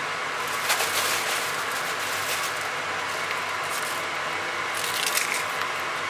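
Chickpeas and other ingredients dropped by hand into a stew in an enamelled cast-iron pot, giving several short soft plops and scrapes over a steady hiss.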